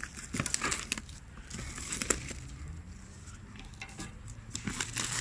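Cardboard box and packaging being handled and opened: irregular clicks, taps and rustles.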